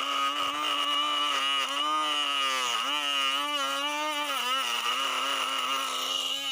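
Small DC motor of a homemade chilli cutter running with a steady whine. Its pitch dips briefly twice, about three and four and a half seconds in.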